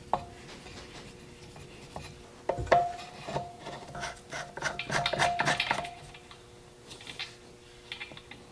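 Hand-fitting an in-line air lubricator onto an air compressor's outlet fitting and attaching its plastic bowl: small parts rubbing and scraping, with a run of clicks in the middle.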